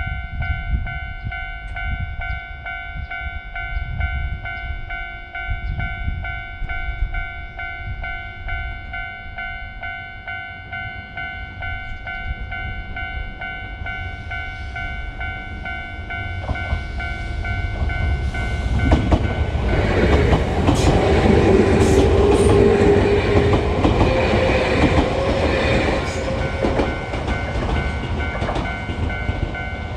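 Japanese level-crossing warning bell ringing its steady, repeating clang throughout, while a train approaches and passes. The train builds from about halfway through, is loudest for several seconds with wheel clatter and sharp clicks, then fades as the bell keeps ringing.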